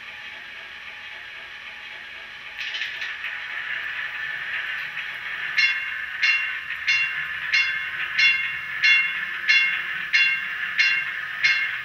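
Sound decoder in an On30 model trolley playing its running sounds through the model's small speaker: a steady electric-motor hum and a brief hiss, then from about halfway the trolley's bell ringing over and over, about one and a half strikes a second.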